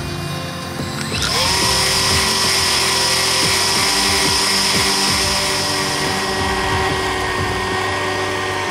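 Small electric motor of a model RC snow blower spinning up about a second in with a rising whine. It then runs steadily with a high whine and a strong hiss.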